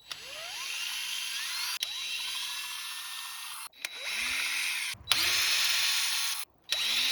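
Electric drill run in about five bursts of one to two seconds, the motor spinning up with a rising whine at each trigger pull, as it drills out a broken bolt in an engine block.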